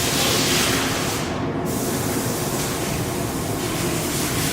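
Steady hiss of compressed air from air tools in an auto body shop, over a constant low shop rumble; the high hiss cuts out briefly about a second and a half in, then resumes.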